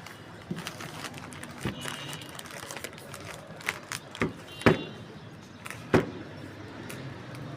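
A series of sharp clicks and knocks from small hard objects being handled, about seven in all, the loudest a little past halfway and another about six seconds in.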